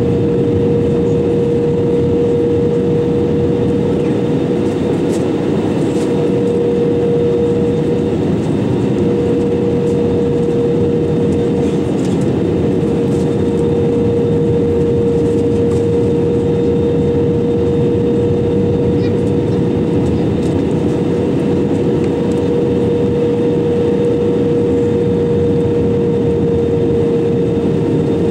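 Airbus A320-200 cabin noise in flight: a steady rush of engine and airflow noise with a constant mid-pitched hum running through it, unchanging throughout.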